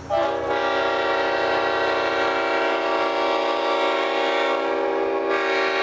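Leslie RS-5T series five-chime locomotive air horn sounding one long, steady blast. The full five-note chord comes in sharply right at the start and holds at an even level.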